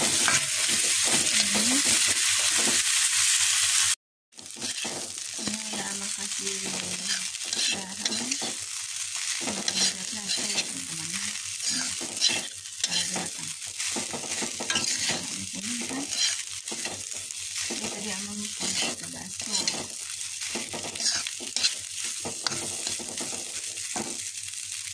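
Vegetables sizzling in hot oil in a pan while a metal spatula stirs them. After a brief cut about four seconds in, the sizzle is quieter and the spatula scrapes and clicks against the pan again and again as fried rice is tossed.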